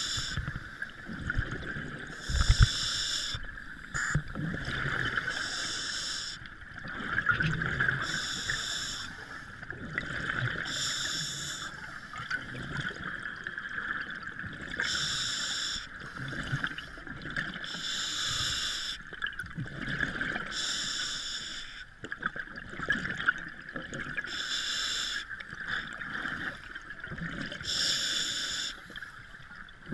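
Scuba regulator breathing heard underwater: about nine short bursts of exhaled bubbles, each under a second long, come every few seconds over a steady underwater hiss.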